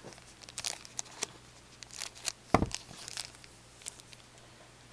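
Shiny foil wrapper of a hockey card pack being torn open and crinkled: a run of sharp crackles over the first three seconds or so, with one louder thump about two and a half seconds in.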